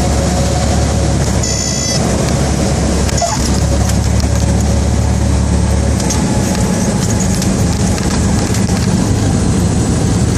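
Cessna 172's piston engine idling, heard from inside the cockpit as a steady drone with air and rolling noise, while the plane rolls out after landing. The low engine note changes about six seconds in.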